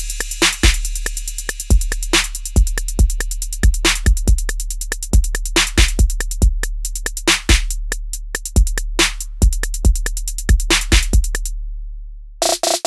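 Background music: a drum-machine beat with sharp kick and snare hits over a deep, sustained bass, and fast hi-hat ticks above. The hi-hats drop out near the end and the bass fades away.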